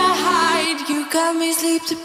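Background pop song with a sung melody wavering in vibrato; the sustained low notes under it drop out about two-thirds of a second in.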